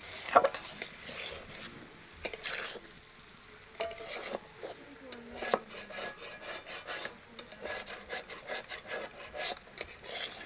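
Boiled potato chunks scraped from a steel bowl into a kadai, then stirred into the spiced masala with a metal spatula: repeated, irregular scraping strokes of metal against the pan.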